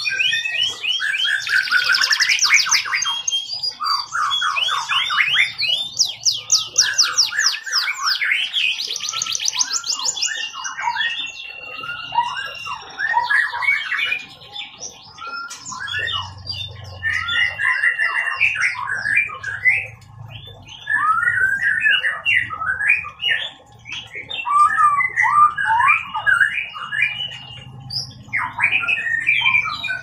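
Domestic canary singing a long, varied song: fast rolling trills through the first ten seconds, then short chirps, buzzy phrases and held whistled notes, with a brief lull about halfway.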